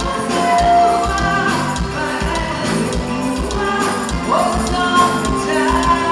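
Traditional forró music from a live band, with a steady beat.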